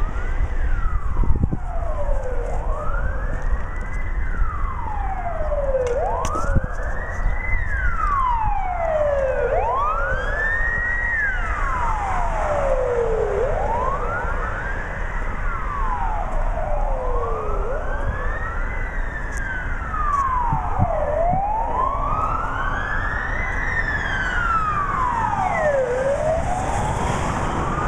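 Wailing sirens of a motorcade's escort vehicles, two or more overlapping, each sweeping slowly up and down about once every three to four seconds, over a steady low rumble of traffic.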